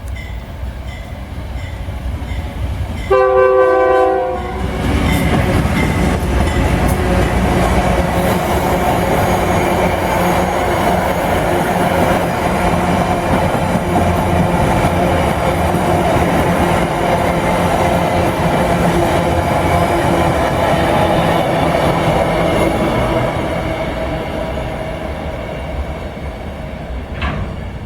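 A diesel train's air horn sounds one short blast about three seconds in. The train then passes close by with a loud, steady rumble of locomotive and wagon wheels on the rails, which fades near the end.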